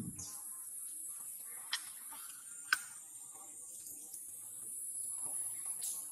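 Insects droning steadily at a high pitch, with two sharp clicks a second apart near the middle.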